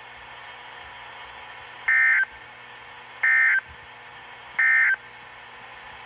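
NOAA Weather Radio SAME End of Message signal: three short bursts of digital data tones, a little over a second apart, over faint stream hiss. It marks the end of the broadcast alert message.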